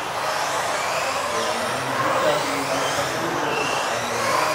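Several radio-controlled off-road model cars racing, their electric motors whining and gliding up and down in pitch as they speed up and slow down, several at once, echoing in a large hall.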